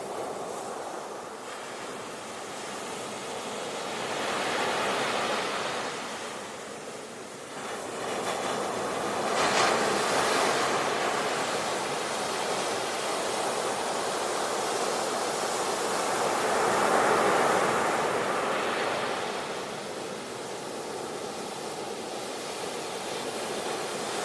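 Sea waves breaking in surf, the noise swelling and falling back in surges several seconds apart, loudest about ten and seventeen seconds in.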